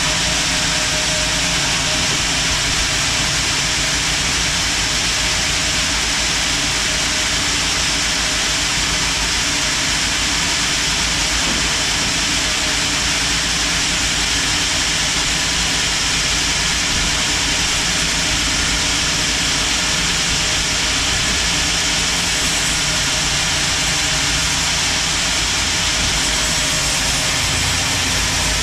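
Sawmill machinery running steadily, a constant loud mechanical noise with no breaks or changes.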